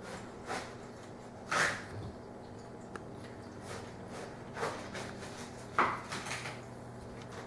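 Steady low electrical hum, with a few brief soft scuffing noises over it; the two loudest come about one and a half seconds in and near six seconds.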